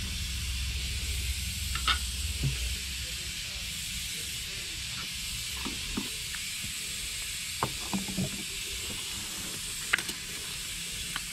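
Steady hiss with scattered light clinks and knocks as metal paint cans, a strainer and an electric spray gun's metal cup are handled and set down, and a sharper click about ten seconds in as the spray gun is fitted onto its cup.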